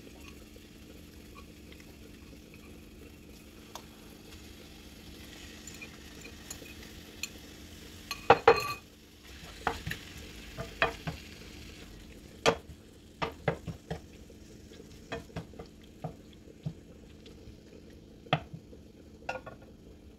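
Raw chicken pieces going into a frying pan of sautéing onions with a faint sizzle, then a loud clatter about eight seconds in. After that a wooden spoon stirs the pan, knocking sharply against it a dozen or so times at uneven intervals.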